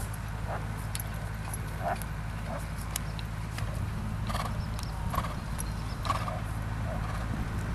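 Hoofbeats of a ridden horse moving on a sand arena: soft, irregular thuds over a steady low hum.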